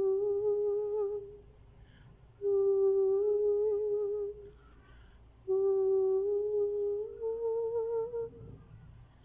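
A young man hums a wordless melody without accompaniment: three long held notes with short pauses between them, the third stepping up in pitch partway through.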